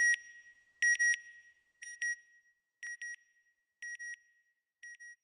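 Electronic satellite-signal beeps: a high double beep about once a second, six times, each pair fainter than the one before.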